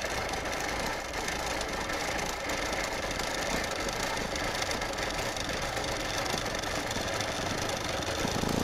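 Longarm quilting machine running and stitching at a steady speed, its needle cycling continuously as the foot follows the arc ruler.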